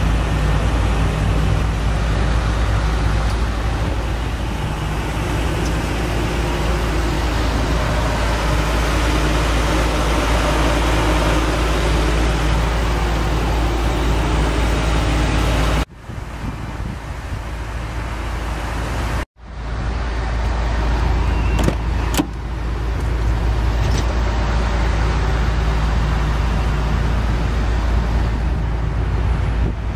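Wind rumbling on the microphone over a steady motor-vehicle hum. The sound drops out briefly twice a little past halfway.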